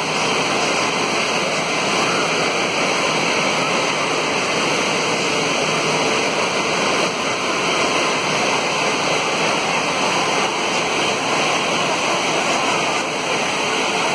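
Steady rush of water spraying and splashing from an indoor water park's play structure and splash-pad fountains.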